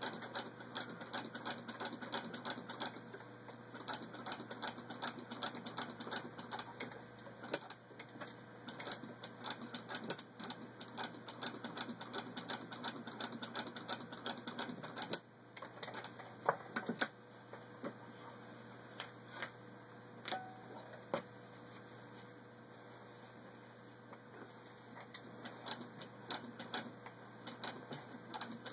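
1921 Singer Model 66 sewing machine turned by hand at its handwheel, its needle and feed mechanism clicking steadily as it stitches through six layers of denim. About halfway through the clicking stops for several seconds, leaving a few scattered knocks, then starts again near the end.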